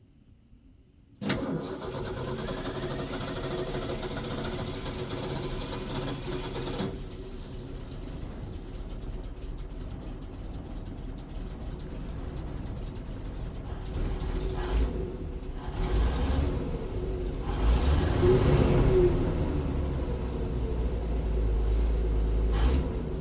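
1965 Ford F100's 300 straight-six engine starting about a second in, running fast at first and settling after several seconds, then revving up again with its loudest stretch late on.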